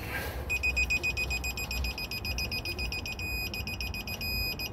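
Digital torque wrench beeping as a cylinder head bolt is pulled up to its 115 torque setting: a high electronic beep pulses rapidly, then holds as a steady tone near the end, the signal that the set torque is reached.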